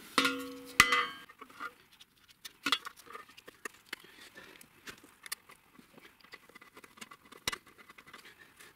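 Thin galvanized sheet-metal chip tray clanging against the lathe bed with a brief ringing note in the first second, then scattered small metallic clicks and taps as it is set in place with nut spacers and fastened.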